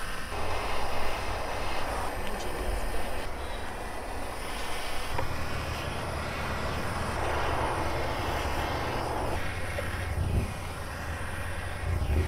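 Handheld gas torch burning with a steady roaring hiss as it scorches carved wood to darken it. It is louder for a couple of seconds near the start and again past the middle, over a low rumble.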